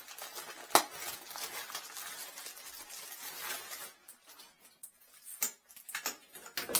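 Crinkly plastic packaging rustling as a shower hose is handled, with a sharp click a little under a second in. The rustling stops after about four seconds, leaving scattered small clicks and crinkles.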